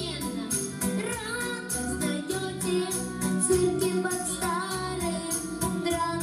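Children singing a song through microphones over a musical accompaniment with a steady beat.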